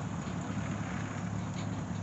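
Steady low engine hum, running evenly without change.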